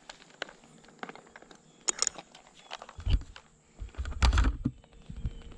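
Climbing rope and gear being handled up in a tree: scattered clicks, scrapes and rustles, with two heavier knocks about three and four seconds in.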